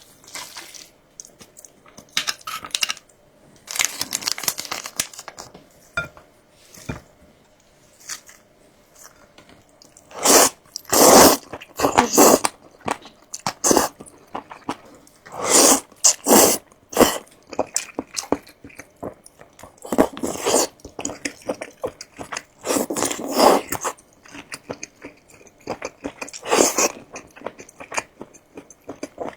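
Close-miked eating: crunchy bites and chewing in irregular bursts, loudest from about ten to seventeen seconds in.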